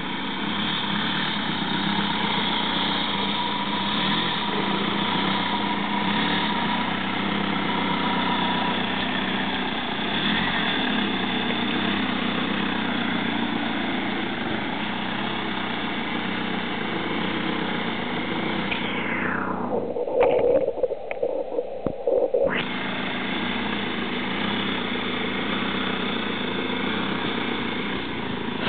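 BMW 1 Series hatchback's engine running steadily at low revs as the car creeps along a rough forest track. About twenty seconds in, a few seconds go muffled, with loud irregular thumps.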